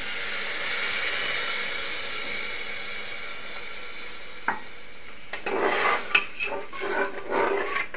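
Water poured onto fried masala dal in a hot aluminium pressure cooker sizzles with a steady hiss that slowly dies away. About four and a half seconds in there is a single click, and then a metal ladle scrapes and stirs against the cooker's sides.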